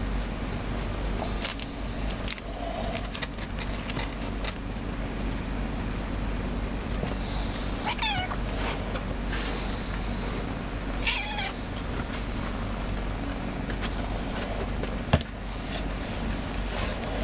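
Domestic cat meowing twice, short calls about three seconds apart, over scattered rustles and clicks and a steady low hum. A single sharp knock comes near the end.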